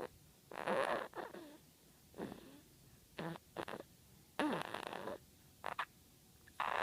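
Seven-week-old kitten snoring in its sleep: about seven short, rough snores at uneven intervals, the longest about half-way through.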